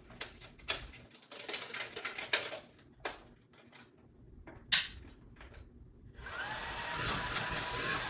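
Clicks and knocks of plastic vacuum parts being handled and fitted together. About six seconds in, the Belife S10 cordless stick vacuum's brushless motor is switched on. It spins up with a short rising whine and then runs steadily.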